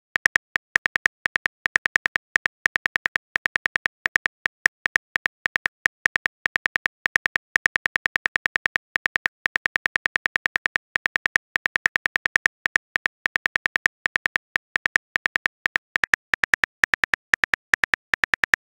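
Phone keyboard typing clicks, a text message being typed: short sharp ticks at about seven a second, in short runs with brief gaps.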